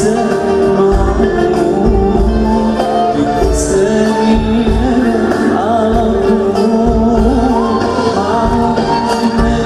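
Live Arabic pop music from a concert stage: a male singer's voice over a band, with sustained keyboard or string chords and a low, regular drum beat.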